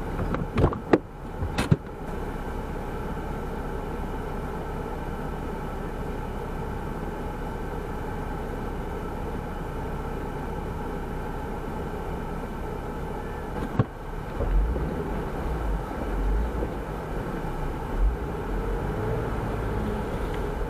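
An engine running at a steady speed throughout. There are a few sharp knocks in the first two seconds and another around two-thirds of the way in, followed by uneven low rumbling thumps.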